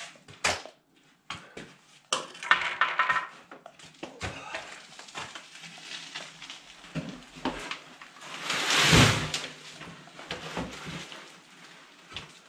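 Wheelbarrow loaded with wet concrete mix being wheeled in with clanks and knocks, then tipped so the concrete slides out into a wooden form with a loud rushing scrape about nine seconds in.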